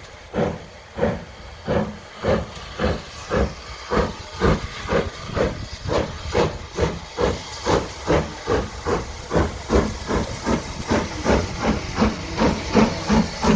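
Steam locomotive exhaust chuffing over a steady hiss of steam, the chuffs coming faster and faster as the engine gathers speed.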